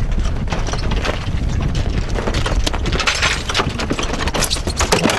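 Freshly caught mahi-mahi thrashing as it is swung aboard and hits the sailboat's deck, making a run of rapid slaps and knocks that grows busier in the second half, over a rush of wind and water.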